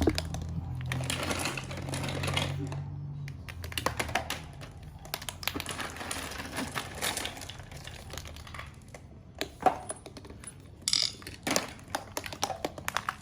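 Light irregular clicking and rattling of a small toy car being knocked about, over a low hum that stops about three seconds in.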